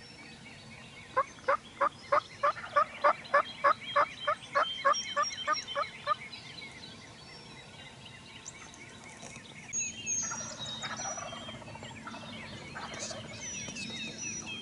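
A run of about fifteen turkey yelps, evenly spaced at roughly three a second, growing louder and then tapering off over about five seconds. Songbirds chirp faintly afterwards.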